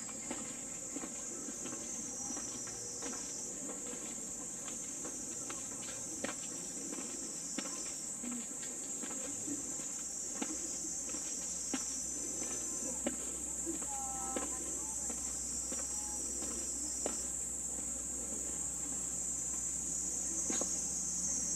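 A steady high-pitched chorus of insects, with scattered sharp clicks over it.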